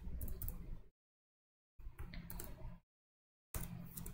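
Computer keyboard typing in three short runs of faint keystroke clicks, with dead silence between the runs.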